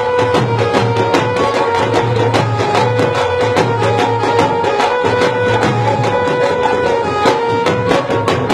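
Dhol drum played in a fast, driving beat over steady held melodic notes: an instrumental passage of Punjabi folk music, without singing.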